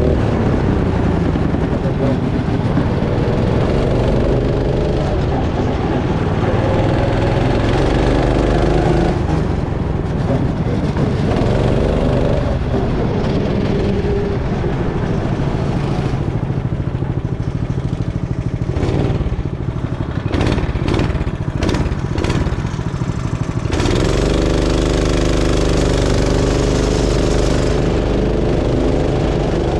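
Go-kart engine running hard, its pitch rising and falling over and over with the throttle. For several seconds past the middle it drops back under a run of sharp knocks and rattles, then picks up again.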